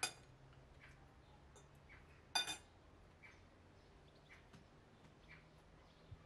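Cutlery clinking on porcelain plates while eating: soft scattered clicks, with one sharper ringing clink about two and a half seconds in.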